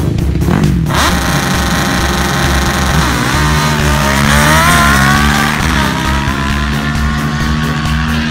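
Two drag-racing quads launching off the line about a second in and accelerating hard, engines revving high with the pitch climbing as they pull away. One quad is powered by a Suzuki GSX-R1000 motorcycle engine.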